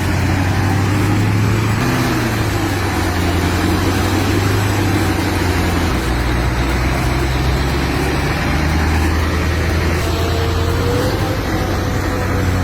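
Heavy truck's diesel engine running hard under full load while it drags a loaded trailer through mud, its low note dropping about halfway and rising again.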